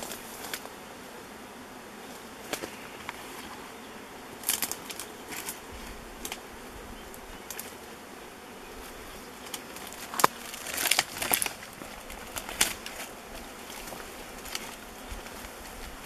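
A swarm of honey bees buzzing steadily around and on a swarm box. Sharp rustles and clicks from handling break through it, the loudest cluster about ten to twelve seconds in.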